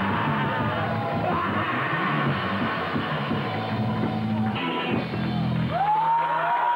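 Live rock band playing, with a male singer yelling into the microphone over guitars and bass. The band stops about six seconds in, leaving several high tones gliding up and down.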